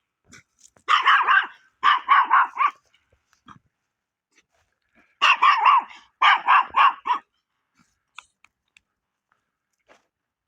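Dog barking in four quick runs of rapid barks, two close together near the start and two more about halfway through.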